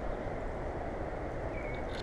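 Steady low rumble of outdoor background noise, with a short faint high note and a few light clicks near the end.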